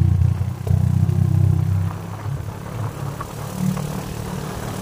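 Motorcycle running along a rough road, heard as a steady low rumble that drops back after about two seconds, with a few faint rattles.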